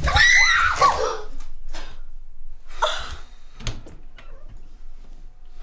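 A short cry that rises and falls in pitch, then a few sharp knocks and clunks, each separate, with a faint steady hum near the end.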